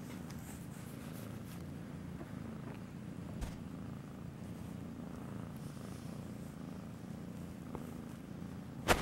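A feral kitten purring steadily as it is stroked by hand, a low, evenly pulsing purr. One faint click about three and a half seconds in, and a brief loud bump right at the end.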